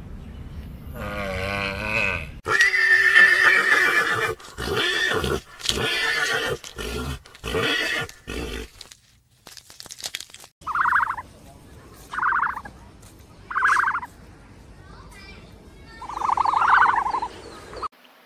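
An equine's loud call: a wavering whinny followed by a rhythmic run of neighing or braying bursts, about one a second, that stops about nine seconds in. After a short pause a goose honks four times, the last call the longest.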